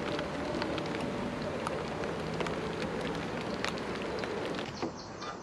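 Rain pattering on the river and the boat, with many scattered sharp drop clicks over a faint steady hum. The sound changes abruptly and drops in level near the end.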